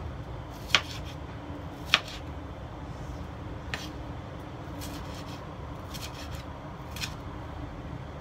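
Kitchen knife cutting tomato on a wooden cutting board, the blade knocking on the board about six times at an uneven pace, the two loudest strikes in the first two seconds. A steady low hum runs underneath.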